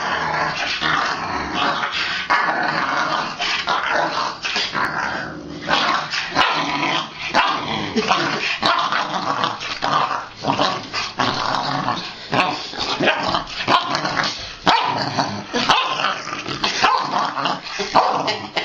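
St. Bernard puppy play-growling almost without pause, with short barks mixed in, as it wrestles in mock toughness rather than real aggression.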